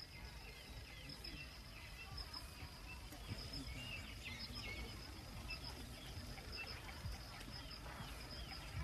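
Faint outdoor ambience: many short, scattered bird chirps and calls over a steady hiss, with a thin steady high tone underneath.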